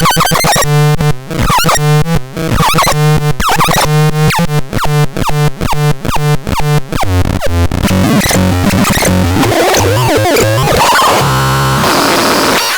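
Harsh electronic synthesizer sound: a rapid series of falling pitch sweeps over a pulsing low tone, breaking up after about seven seconds into a dense, noisy cacophony with a steady buzz near the end.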